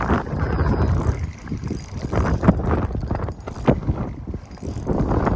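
Wind rumbling on the microphone, with a few sharp knocks, about two and a half and nearly four seconds in.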